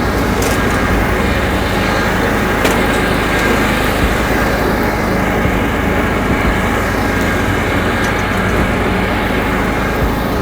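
John Deere 170 riding lawn mower engine running steadily.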